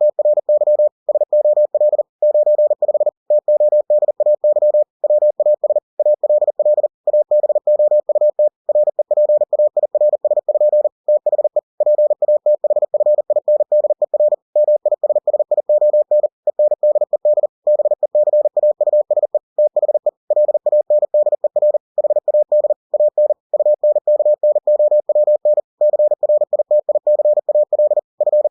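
Computer-generated Morse code (CW) sent at 40 words per minute, spelling out a book's text: a single steady mid-pitched beep keyed rapidly on and off in dots and dashes, with slightly longer gaps between words.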